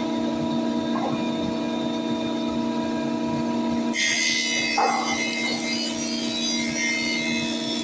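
IberMac PF-400 planer running with a steady motor and cutterhead hum. About four seconds in, the blades begin cutting a wooden board fed across the table, adding a higher, hissing cutting noise.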